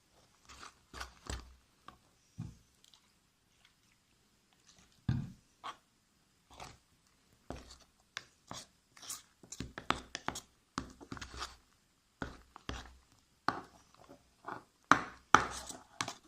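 Fluffy slime being mixed and worked as it thickens with the activator solution: irregular sticky squishing and crackling clicks, growing busier and louder in the second half.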